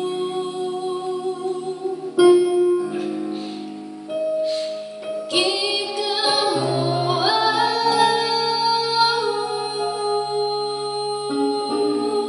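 A song sung in layered harmony, with long held notes that move to a new chord a few times.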